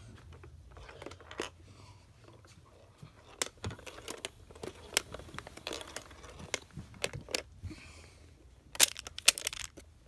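Plastic magnetic building tiles of a toy car being handled: scattered light clicks and clacks, with a quick run of sharper clacks near the end as a tile panel is moved.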